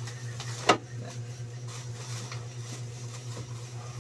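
Thin plastic bag crinkling and rustling as its knot is picked loose, with one sharp snap of plastic under a second in. A steady low hum runs underneath.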